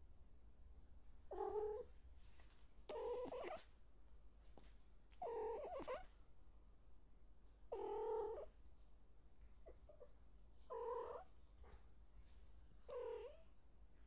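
A domestic cat meowing six times, each call under a second long, about two seconds apart.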